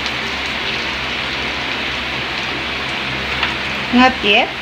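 Meat and eggplant sizzling steadily on the hot grill plate of an electric griller, with a few faint clicks of chopsticks turning the meat. A short voice sound breaks in near the end.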